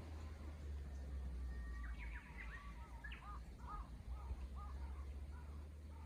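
Japanese bush warbler singing: a held whistled note about two seconds in, followed by a run of quick, evenly repeated looping notes, over a steady low rumble.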